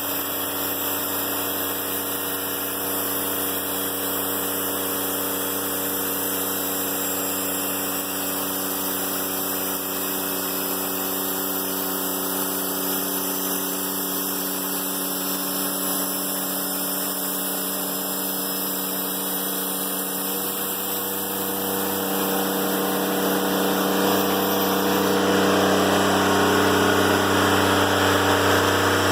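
Diesel engine of a Timberking 1400 sawmill running steadily, growing louder about three-quarters of the way through.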